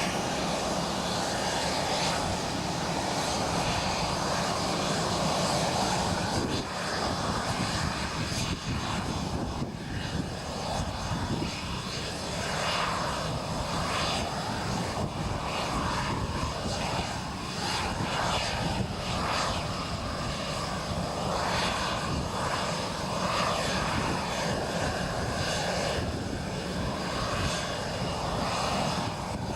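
Tornado GR4 jet engines running, a loud steady jet noise with a whine that wavers up and down through the middle of it.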